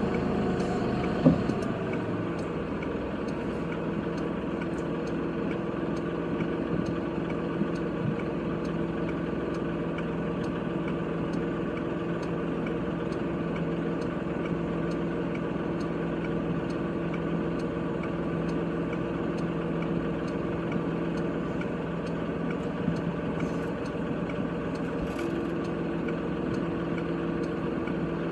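Kubota tractor's diesel engine running at a steady speed, with one sharp knock about a second in.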